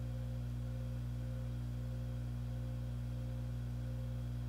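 Steady low electrical hum with no other sound: fixed low tones that do not change.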